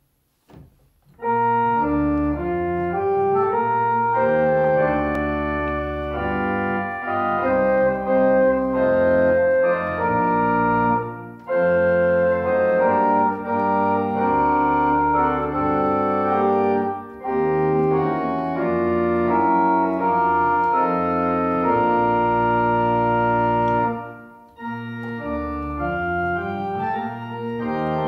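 Organ playing a hymn accompaniment in sustained full chords over low bass notes, starting about a second in. The music pauses briefly between phrases, three times.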